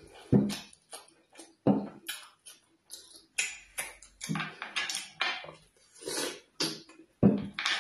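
Close-miked wet eating sounds: smacking and chewing, with squelches of fingers pulling apart meat coated in ogbono soup, heard as a string of short separate sounds.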